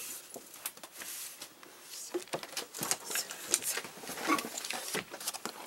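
Handling of the sewing machine's packaging: irregular light rustles, taps and clicks as paper, cardboard and plastic are moved about.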